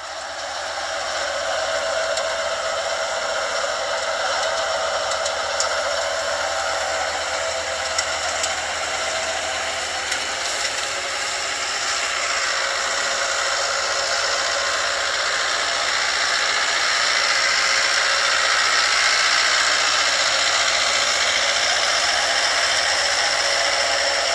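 Tractor-drawn super seeder working through paddy straw: a steady mechanical rattle and whir of the rotor and implement, fading in over the first couple of seconds.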